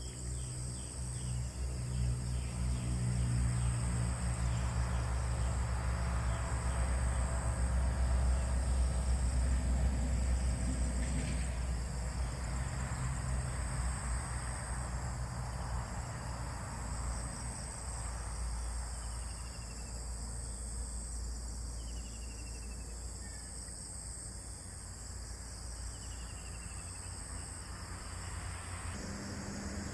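Outdoor ambience: steady high insect chirring, with a few short falling bird calls in the second half, over a low rumble that swells over the first ten seconds or so and then eases off.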